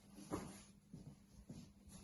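Faint rustling and handling of a clothing item, a few soft brushes of fabric, the clearest about a third of a second in.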